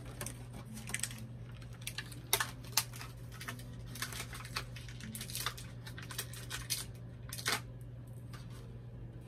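Small plastic and cardboard toy packaging being handled by hand: irregular clicks, taps and crinkles, a few sharper ones standing out, over a steady low hum.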